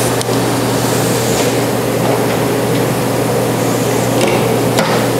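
A steady machine hum with an even hiss over it, unchanging in level.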